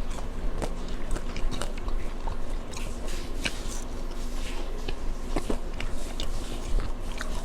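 Close-miked eating: a person chewing and biting food, with irregular small wet mouth clicks, over a steady low hum.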